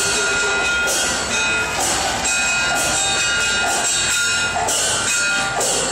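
Live Chinese opera accompaniment over loudspeakers: high instrument tones held steady, with a metallic clash roughly once a second.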